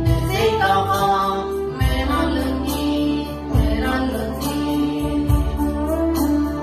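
A Tigrigna Catholic hymn (mezmur) sung by a woman over electronic keyboard accompaniment, with long bass notes and a steady programmed drum beat.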